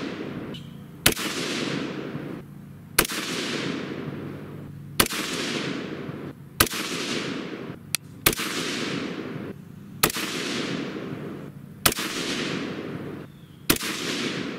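A 22 ARC AR-15 rifle with a muzzle brake firing single aimed shots, eight in all, about one every two seconds. Each sharp report is followed by a rolling echo that dies away over a second or so.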